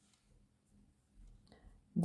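Near silence: room tone with a few faint clicks a little over a second in, and a woman's voice beginning right at the end.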